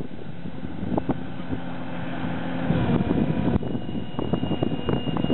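Amphibious aluminium boat's engine running steadily at low speed in shallow water. A high steady whine joins in about three and a half seconds in.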